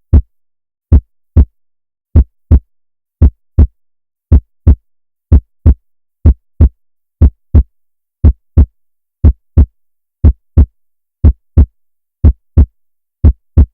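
Heartbeat sound effect: pairs of deep lub-dub thumps repeating steadily about once a second, with dead silence between the beats.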